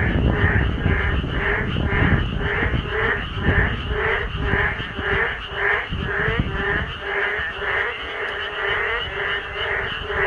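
A chorus of many frogs calling, their croaks overlapping in a steady rhythm of about two pulses a second. A low rumble runs underneath and fades out about seven seconds in.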